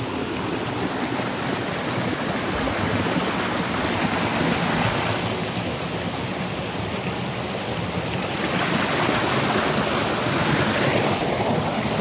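Shallow stream rushing over rocks in small cascades: a steady rush of water.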